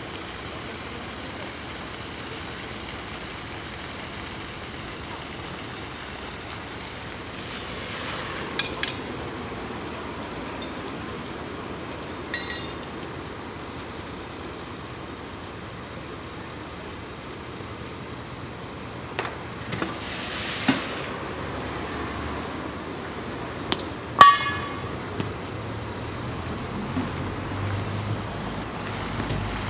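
Fire engine's engine and pump running steadily while its water tank is refilled from a street hydrant, with several sharp metallic clinks from hose couplings and hydrant fittings being handled. A car passes near the end.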